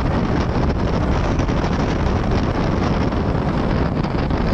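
Loud, steady rushing noise with no clear pitch or rhythm: wind blowing across the microphone.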